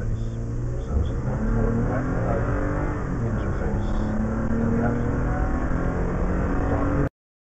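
Car engine heard from inside the cabin, accelerating hard from a crawl to highway speed. The sound cuts off abruptly about seven seconds in.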